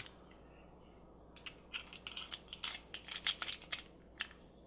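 Small hard-plastic clicks and taps as a MagiClip doll dress is lifted off its plastic hanger and clipped onto a small Elsa doll. One sharp click comes at the start, then a quick run of clicks and taps begins about a second and a half in and stops shortly before the end.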